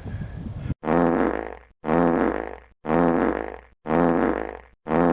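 A looped comedy sound effect: the same short buzzy, pitched blare, each starting loud and fading, repeated identically about once a second. It starts abruptly after a cut from the outdoor sound, just under a second in.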